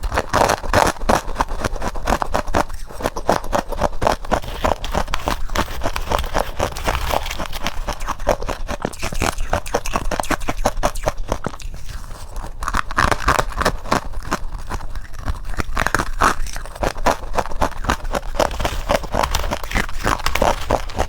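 A person biting and chewing freezer frost, with a steady stream of close, crisp crunching.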